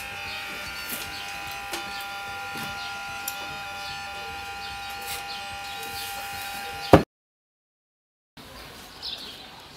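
Steady electrical buzz made of several held tones, cut off by a sharp click about seven seconds in, followed by a second of dead silence.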